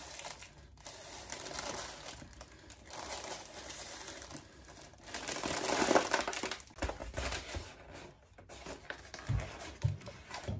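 Crinkling and rustling handling noise that comes and goes, loudest about six seconds in, with two low thumps near the end.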